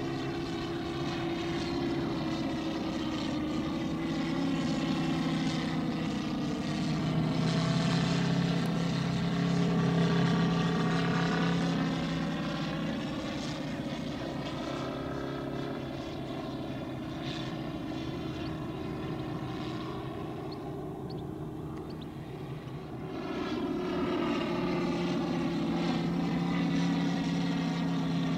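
Moki 250 five-cylinder radial engine of a large-scale RC Stearman PT17 model biplane running steadily in flight. Its note grows louder as the plane comes closer a third of the way in, fades somewhat past two-thirds of the way, then swells again near the end.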